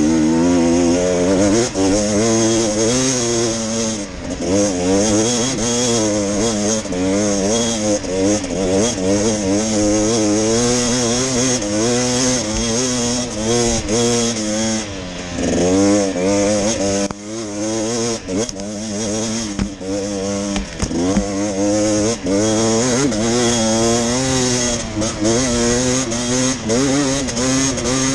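Enduro motorcycle engine being ridden hard, the revs rising and falling every second or so with the throttle. There are a few short drops in revs a little past the middle.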